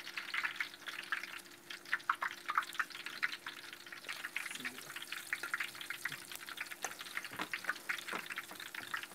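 Falafel deep-frying in hot oil: a steady sizzle with dense crackling pops, over a steady low hum.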